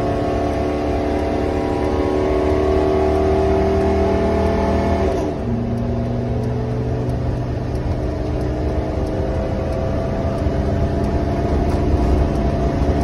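Motorhome engine heard from inside the cab, running hard at full throttle, its note climbing slowly and then dropping suddenly about five seconds in before rising again. With the pedal on the floor it pulls with no power, yet runs smoothly with no chugging or sputtering.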